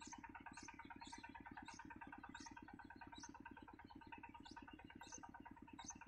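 Faint, high-pitched begging chirps from nestlings in the nest, repeated about every half second to a second. They sound over a fast, even low buzzing pulse.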